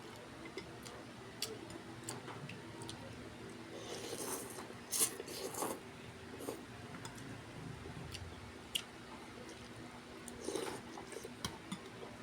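Close-up eating sounds: chewing with small clicks, and a few louder bursts about four to six seconds in and again near ten seconds, over a steady low hum.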